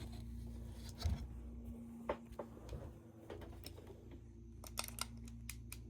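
A few faint clicks and taps of tools and parts being handled at a workbench, over a steady low electrical hum.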